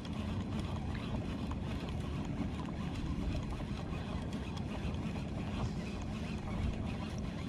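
Sougayilang round baitcasting reel being cranked steadily to bring up a hooked fish, a low steady whirr mixed with wind rumble on the microphone.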